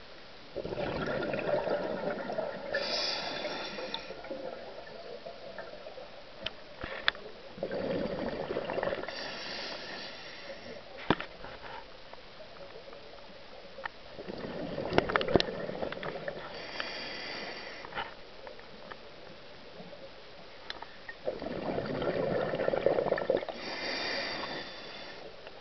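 A scuba diver breathing underwater through a regulator: four breaths about seven seconds apart, each a rush of exhaled bubbles and a hiss of the regulator, with a few sharp clicks in between.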